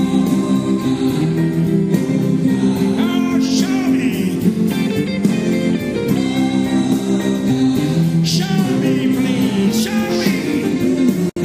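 Music: a song with a singing voice and guitar. It drops out for an instant near the end.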